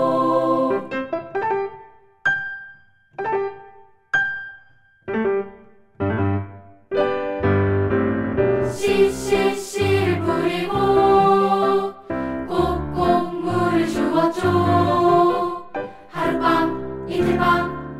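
Children's choir singing with piano accompaniment. A held chord dies away about a second in, then a few seconds of short, separate piano notes lead in before the choir comes back in over a fuller piano part.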